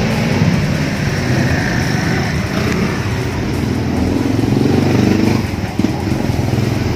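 Motorcycle engine running, its pitch wavering and rising for a while past the middle.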